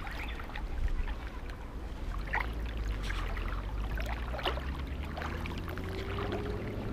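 River water running, with a steady low rumble under it and scattered small clicks and knocks.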